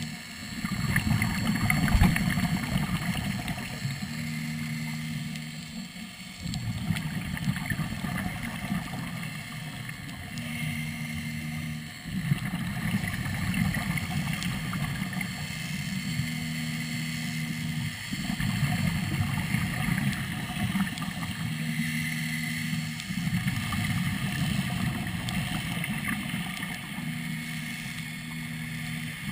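A scuba diver breathing through a third-lung hookah regulator underwater, in a slow cycle: a rush of bubbling exhaust alternates with a short low hum about every five to six seconds.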